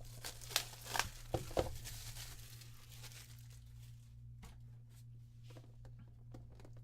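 Packaging on a trading-card booster box being torn and crinkled open by hand: a few sharp tearing rustles in the first two seconds, then softer scattered rustles and clicks, over a steady low electrical hum.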